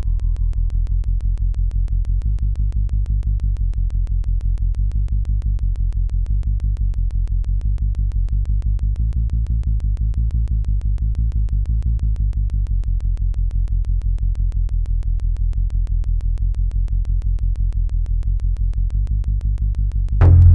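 Suspense film score: a low synthesizer drone pulsing rapidly and evenly throughout. It jumps louder and deeper just before the end.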